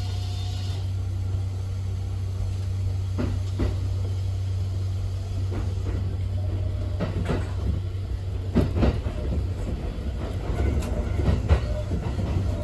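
Kintetsu electric train heard from inside the driver's cab as it pulls away from a station: a steady low hum, with sharp wheel clacks over rail joints and points starting a few seconds in and coming more often toward the end.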